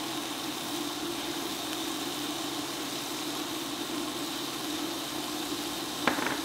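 A steady, slightly wavering hum with a hiss underneath, with a single sharp click about six seconds in.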